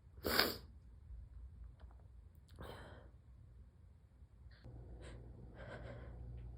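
A sick woman's sharp, breathy inhalations as a sneeze builds, with a false start that doesn't come out. The first breath, about half a second in, is the loudest; weaker ones follow near 3 s and near the end.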